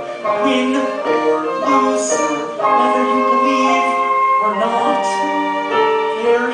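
A musical-theatre song performed live: singers with piano accompaniment, held notes moving in steps.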